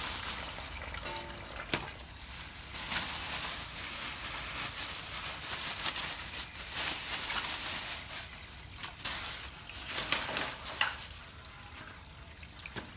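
Bundles of fresh vegetables and herbs being handled and laid into a stainless steel sink: leaves and stalks rustling, with a few light knocks.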